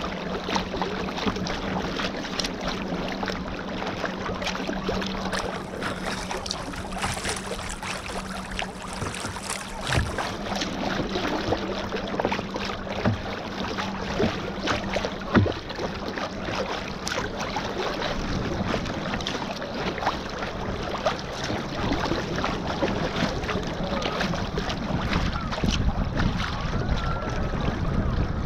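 Water splashing and lapping around a sit-on-top kayak as it is paddled on a calm sea, with small irregular splashes from the paddle blades and some wind on the microphone. A low steady hum stops about ten seconds in.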